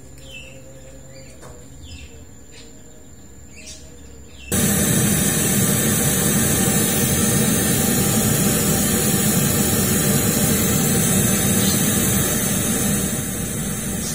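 Steady hiss of measurement test noise that cuts in suddenly about a third of the way in, played through a custom line-array box with two 10-inch drivers and a tweeter sounding together, to measure their combined frequency response across the crossover. Before it starts, faint bird chirps.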